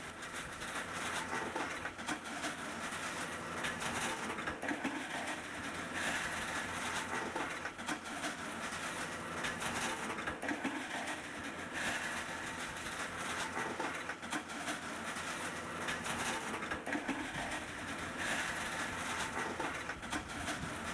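Rock and gravel rattling and tumbling inside the rotating drum of an excavator-mounted trommel screen bucket, over the steady running of a small excavator's engine and hydraulics.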